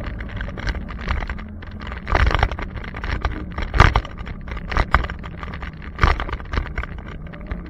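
Riding noise picked up by a handlebar-mounted camera on a bike: a steady rumble of wind and road with a faint low hum, broken by several louder knocks and rattles from the bars.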